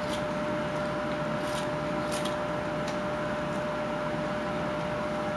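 Carving knife slicing thin shavings off a wooden block: about four short, crisp cuts in the first three seconds, over a steady room hum with a constant tone.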